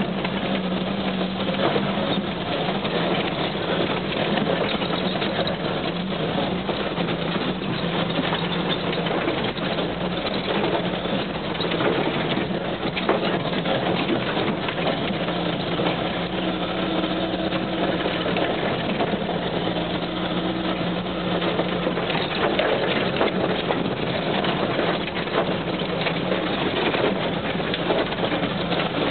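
Off-road vehicle driving on a rough gravel track, heard from inside the cab: the engine runs with a steady hum under a constant wash of road noise and small knocks.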